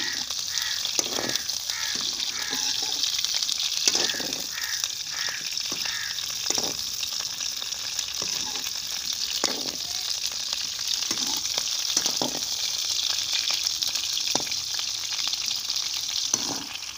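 Cauliflower florets frying in hot oil in a steel wok: a steady sizzle, with the slotted spoon scraping and knocking against the pan now and then as the pieces are stirred to brown.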